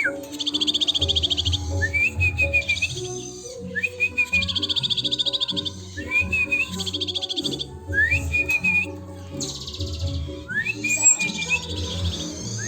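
A glatik batu (cinereous tit) singing, with cililin phrases woven into its song. Each phrase comes about every two seconds: a quick rising note into a short trill, then a fast, rapid trill lasting about a second and a half. Background music plays low beneath the song.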